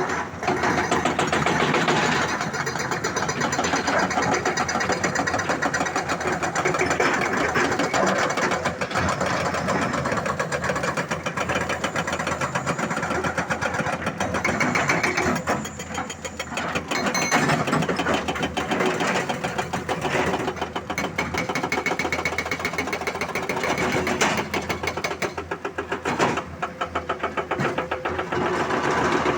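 Diesel engines of hydraulic excavators running steadily with a fast, even clatter, dipping briefly twice.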